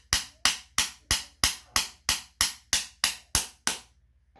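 Rapid, evenly spaced taps on a metal socket used as a driver to press a new washing-machine coupler onto its shaft, about three strikes a second, stopping shortly before the end.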